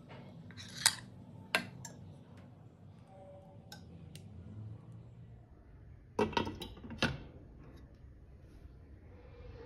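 Kitchen utensils knocking on a frying pan: two sharp clinks about a second in, then a glass pan lid set down on the pan with a clatter a little after six seconds and a second knock about a second later.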